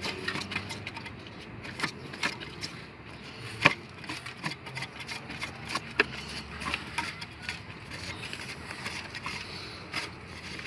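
Irregular clicks and knocks of hands and tools working on the radiator fan and its plastic fan shroud, with one sharper knock about a third of the way in and another a little past halfway.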